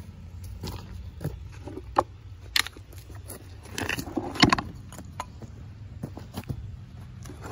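Footsteps on loose rocks and bark debris, with a few sharp knocks and clatters; the loudest clatter comes about four and a half seconds in, over a low steady rumble.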